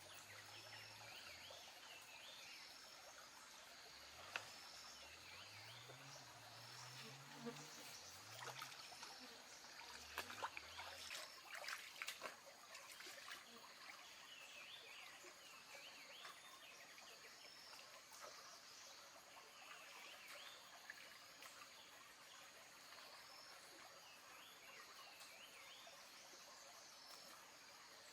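Faint forest ambience: a steady high insect drone, with short high calls repeating every couple of seconds, and a spell of light clicks and crackles about a third of the way in.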